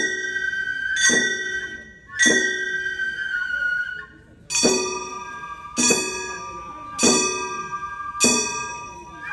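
Gion bayashi kane, the small bronze hand gongs of Kyoto festival music, struck in a slow even beat of about one stroke a second, with one beat left out near the middle. Each stroke rings on, bright and metallic, until the next.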